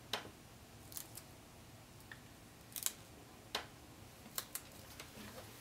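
Fingers pressing and smoothing a paper sticker onto a planner page: faint paper rustles with about six short, sharp clicks and taps scattered through.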